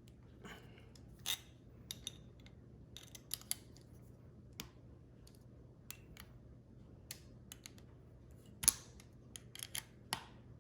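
Irregular sharp clicks and taps of a tool prying at a power strip's plastic back cover, with one louder snap about three-quarters of the way through.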